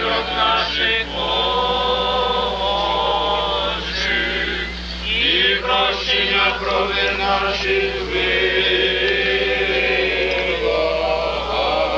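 A cappella church choir singing Orthodox liturgical chant, with several voices holding and moving through chords together. A steady low hum runs underneath.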